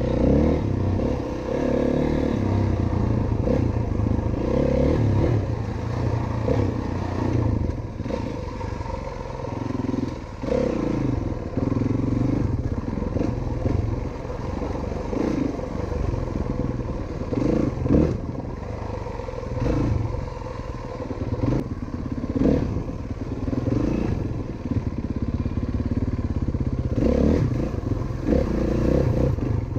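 Dirt bike engine running under way, its note rising and falling with the throttle, with occasional knocks and clatter.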